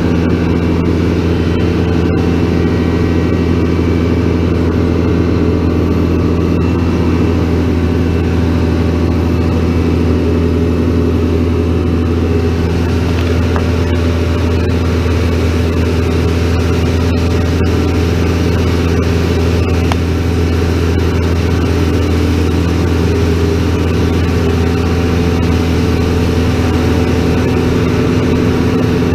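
Over-the-row grape harvester running steadily while picking: a constant engine drone with steady tones, no change in pace.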